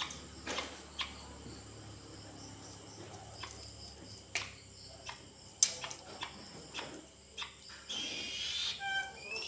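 Scattered light clicks and knocks. Near the end a young eagle chick starts thin, high, rising calls.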